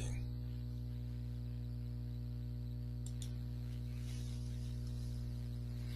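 Steady low electrical hum with a faint hiss: the recording's background noise, with no other sound.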